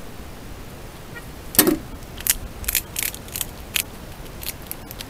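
A pine marten feeding at a squirrel feeder box: a run of about ten sharp clicks and clatters, the first and loudest about one and a half seconds in.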